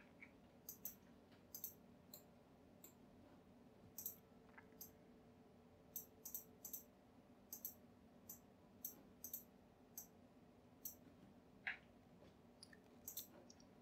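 Faint computer mouse button clicks and keyboard key presses, short and sharp, at irregular intervals, over a faint steady hum.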